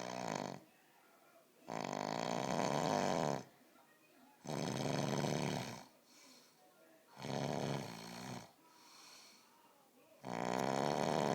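A person snoring in a slow, regular rhythm: a loud rasping snore about every three seconds, each lasting a second or two, with softer breaths between some of them.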